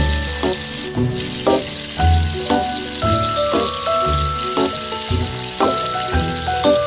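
Pork pieces sizzling as they brown in hot oil in a frying pan. Background music with a steady beat plays over the sizzle.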